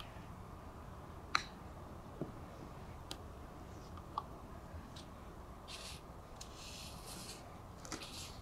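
A golf club striking the ball on a short shot from off the green: one sharp click about a second and a half in, then a few faint ticks and two short bursts of hiss over a quiet background.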